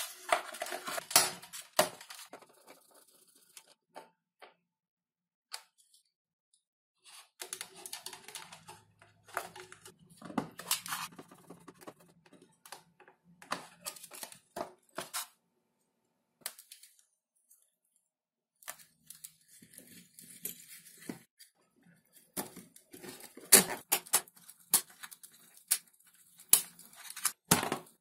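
Scattered plastic clicks, taps and rubbing of hands fitting a servo into a foam model-airplane fuselage and working a small screwdriver on the servo arm, broken by pauses of near silence. Several loud sharp clicks come close together near the end, as a cutter is closed.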